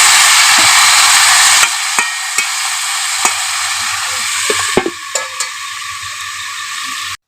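Oil sizzling loudly in a pan during frying, with a utensil clicking and knocking against the pan as the food is stirred. The sizzle eases a little after the first couple of seconds and cuts off abruptly near the end.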